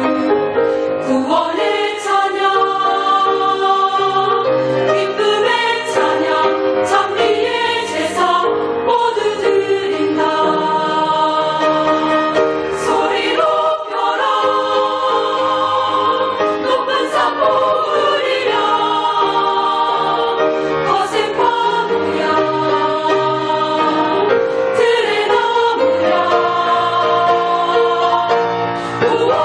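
A choir singing a hymn in harmony, many voices holding long chords that change every second or two.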